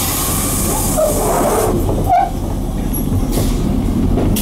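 Inside a Mitsubishi Fuso Aero Midi MK bus: its 6M61 six-cylinder diesel running low and steady, with a hiss of air at the start and a short squeak about two seconds in.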